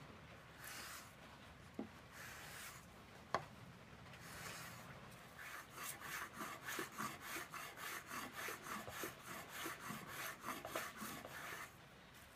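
Small apron plane (Axminster Rider 102) taking shavings off a block of pine: a few slower strokes about a second apart, then a quick run of short strokes from about five seconds in, with a couple of light clicks of the plane touching the wood.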